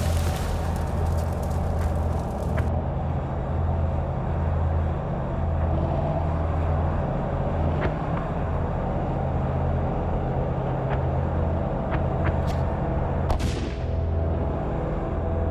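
Low, steady rumble of a T-72 tank on the move, with a few sharp cracks of gunfire; about 13 seconds in, a high whistle falls in pitch.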